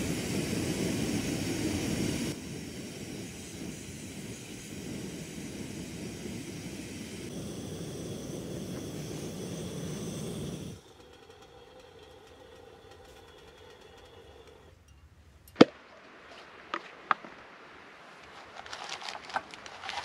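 Gas canister camp stove burner running steadily under a metal kettle, a low roar that drops in level about two seconds in and stops abruptly about eleven seconds in. After that it is quieter, with one sharp knock and a few lighter clicks as cookware is set down on a wooden log.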